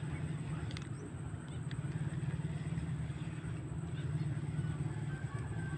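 An engine running steadily, heard as an even low drone with a fine rapid flutter.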